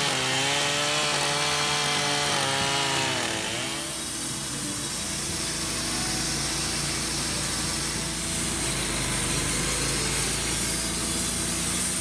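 A Stihl chainsaw runs with its pitch rising and falling for about three and a half seconds. Then a Wood-Mizer LT15 portable bandsaw mill's engine runs steadily while its band blade saws across the top of an oak stump.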